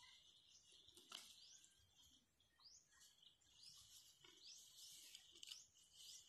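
Faint grazing: a heifer tearing and cropping grass with a few soft snaps, under short high rising bird chirps that repeat about twice a second over a steady high hiss.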